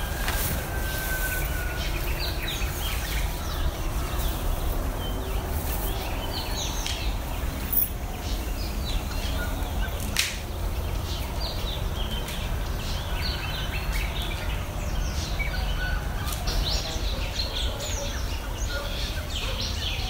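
Several wild birds singing and calling: many short, high chirps and twitters at different pitches, growing busier in the second half, over a steady low rumble. A sharp click about ten seconds in.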